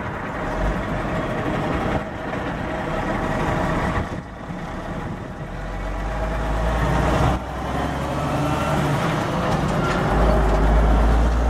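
Diesel engine of a Volvo semi tractor hauling a belly dump trailer, pulling away and driving past close by. It grows louder with a deep rumble near the end as the truck passes.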